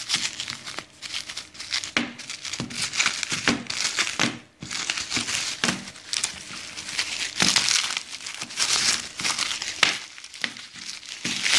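Bubble-wrap mailer and clear plastic wrapping crinkling and rustling as hands handle and open them, in an irregular run of crackles with short pauses.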